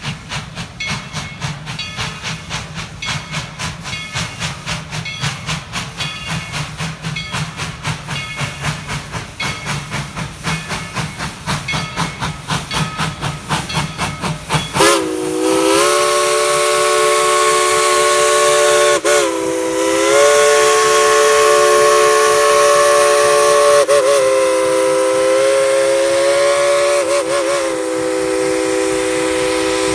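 Narrow-gauge steam locomotive passing. For about fifteen seconds there is a rapid, even rhythmic beating as it comes by, then its chime steam whistle sounds a long chord of several notes, broken briefly once and wavering a little in pitch.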